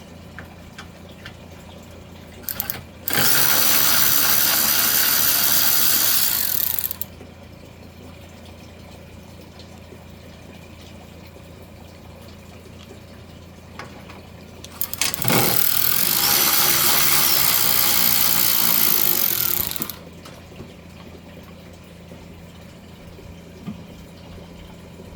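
Milwaukee M12 battery impact ratchet running twice on bolts, once for about four seconds and again for about five seconds, each run a steady power-tool whir.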